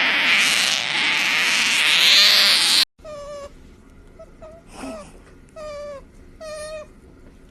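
Pet otter vocalising: a loud, harsh squeal for about three seconds that cuts off suddenly, then four short whining calls, each dipping slightly in pitch at the end.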